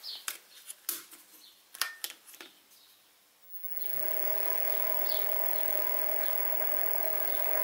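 A few sharp clicks and knocks, then about three and a half seconds in the Sieg SX2P mini mill's spindle motor starts, rising in over half a second, and runs steadily with a whine, spinning the slitting saw before the cut.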